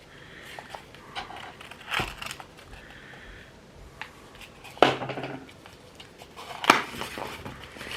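Packaging rustling as hot sauce bottles are unpacked from a box, with three sharp knocks about two, five and seven seconds in.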